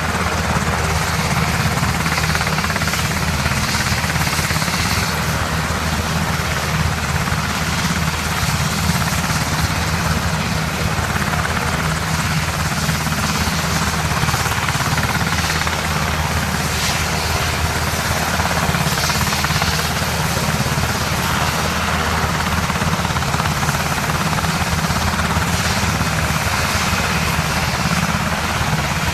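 US Army UH-60 Black Hawk medevac helicopter running on the ground with its rotors turning: a steady, fast main-rotor beat over continuous engine noise.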